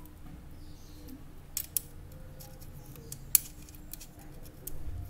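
Metallic clicks of a round multi-pin cable connector being pushed into and fastened on its socket in a metal power-supply case. There are two clicks about a second and a half in, a louder sharp click past the middle, a few fainter ticks, and a dull bump near the end.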